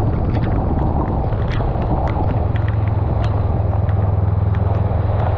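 Honda Rebel 500's parallel-twin engine running steadily at cruise, a little stronger from about halfway through, over the hiss of tyres on a wet road and wind. Short sharp ticks, many of them, run through it: raindrops striking the camera.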